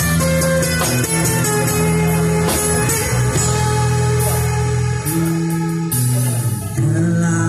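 Acoustic guitar amplified through a PA speaker, playing an instrumental passage with low held notes underneath and no singing.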